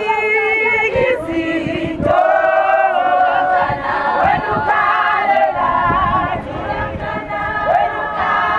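A large group of women singing and chanting together as they march, many voices at once, loud and close.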